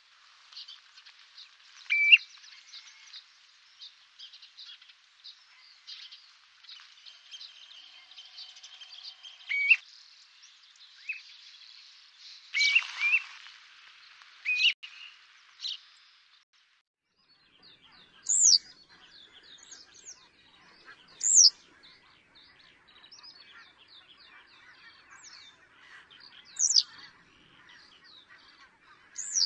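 Wild birds calling: clear upslurred whistles every few seconds over a background of many small chirps. The sound breaks off about halfway, then resumes with sharper, higher calls a few seconds apart.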